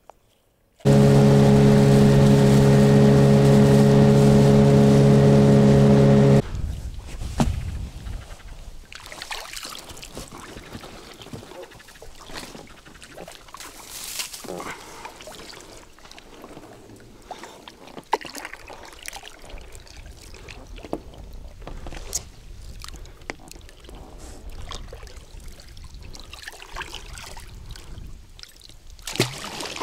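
A loud, steady buzzing tone for about five seconds. Then water splashing and dripping, with scattered knocks and clicks, as a fishing set line and sinker are hauled up by hand from an inflatable boat.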